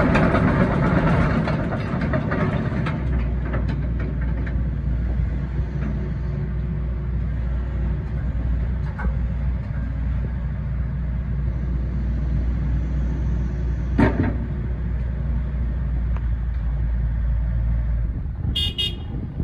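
Hitachi ZX130LCN-6 excavator's four-cylinder diesel engine and hydraulics running, louder for the first few seconds and then settling into a steady low drone. A single sharp clunk comes about two-thirds of the way through, and a brief high chirping near the end.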